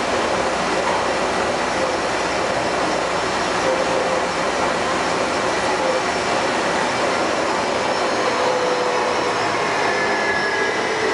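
Bombardier rubber-tyred people-mover train on the Taipei Metro Wenhu line running at speed: a steady rolling rush with a faint whine. Near the end, higher whining tones slide slowly in pitch. The uploader says this train has developed abnormal running noises.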